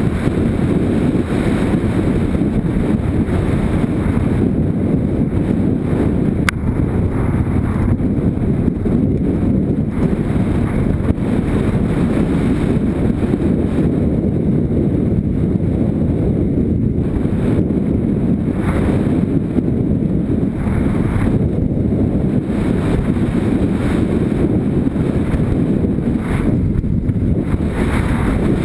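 Motorcycle riding along a dirt track, its engine running steadily under heavy wind buffeting on the microphone. A single sharp click about six seconds in.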